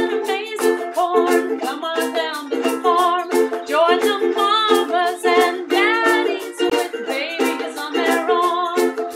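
Ukulele strummed in a steady rhythm, playing a song, with a melody that glides up and down over the chords.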